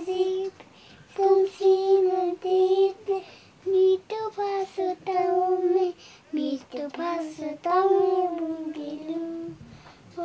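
A child singing a song in phrases of held notes, with short breaks between them and no instruments.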